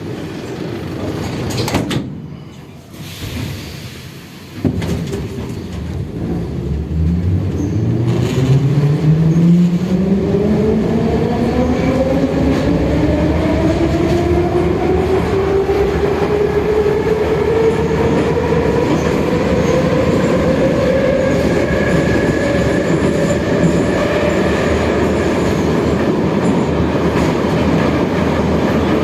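Metro train departing: a thud about four and a half seconds in as the doors shut. Then the traction motors' whine climbs steadily in pitch as the train accelerates, under steady wheel and track noise, and levels off near the end.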